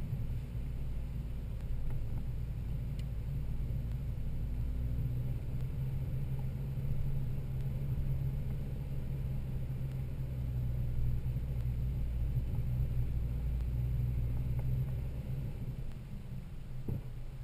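Toyota Land Cruiser 80 Series running along an off-road trail, a steady low engine and drivetrain rumble that eases slightly near the end.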